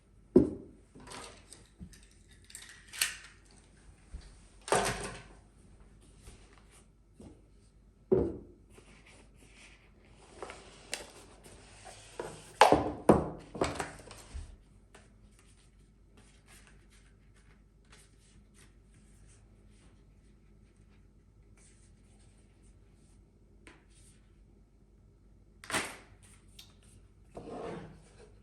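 Hands handling the tripod's packaging and its parts: irregular knocks, thunks and short rustles and scrapes, busiest in the first half. It goes mostly quiet after about half-way, with a few more knocks near the end.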